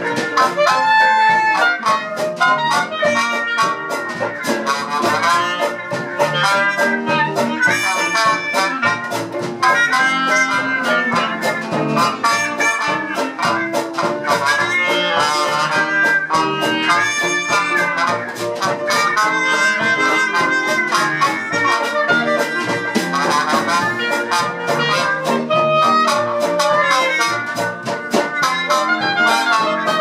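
Live traditional jazz band playing, with clarinet, trumpet and trombone weaving melody lines over double bass, piano and drums keeping a steady beat.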